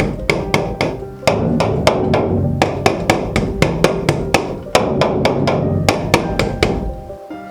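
A quick run of sharp knocks, about three a second with a few short pauses, stopping shortly before the end, over background music.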